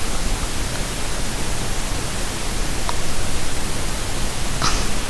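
Loud, steady hiss of static across the whole range, with a few faint clicks, one a little stronger near the end.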